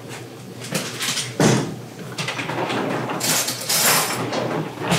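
Kitchen handling noises: a solid thump about a second and a half in, then a stretch of rustling and a sharp click near the end.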